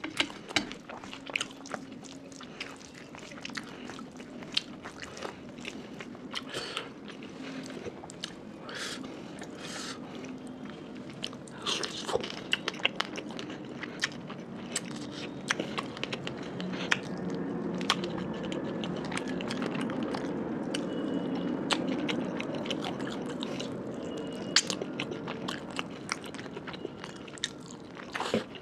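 Close-miked eating by hand: fingers squishing and mixing rice with curry on a steel plate, then wet chewing and mouth clicks as handfuls of rice and curry are eaten.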